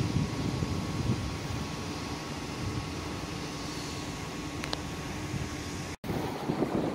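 Steady low outdoor rumble with a faint steady hum. It cuts off abruptly about six seconds in, and gusts of wind then buffet the microphone.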